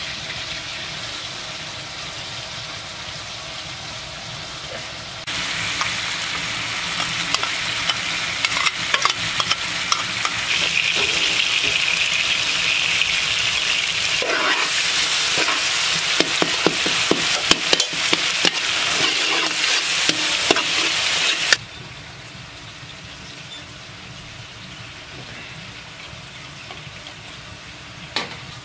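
Chopped tomatoes and bell pepper sizzling as they fry in a large metal pot, with a metal slotted spoon clicking and scraping against the pot as it is stirred. The sizzle gets louder about five seconds in and drops suddenly after about twenty seconds to a quieter hiss.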